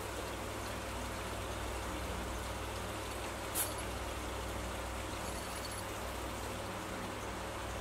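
Steady background hiss over a constant low hum, with one short click about three and a half seconds in.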